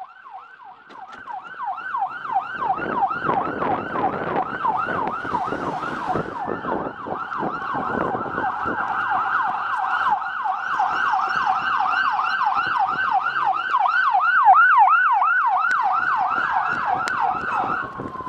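Police siren on the fast yelp setting: a quickly repeating pitch sweep, about three a second, with scattered thumps and rustling underneath.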